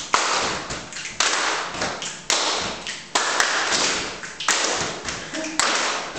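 A group of people clapping hands and stamping feet together in a steady rhythm, a sharp loud strike about once a second.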